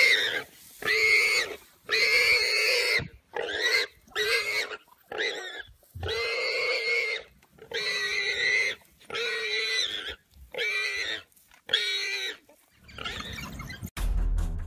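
Warthog screaming in distress while wild dogs bite it: a run of about a dozen loud, high squeals with short gaps between them. Music cuts in near the end.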